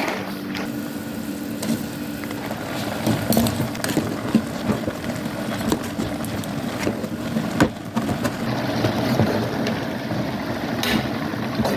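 Pot of water boiling on a stove as instant noodles cook in it, a steady bubbling rumble with a few sharp knocks and clicks scattered through it.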